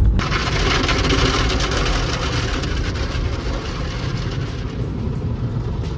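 A loud, even hiss over a low rumble, heard from inside a car. It starts abruptly and slowly fades.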